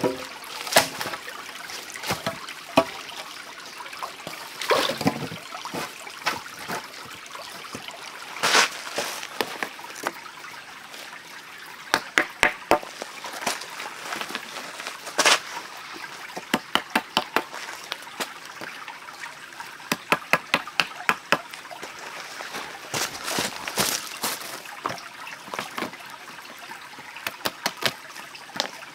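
Stream water trickling steadily, under scattered sharp knocks and taps of bamboo poles against stone as they are set and shifted on a rock pile, some of them in quick runs.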